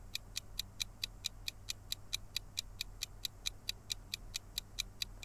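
Quiz countdown-timer sound effect: short, even, clock-like ticks, about four a second.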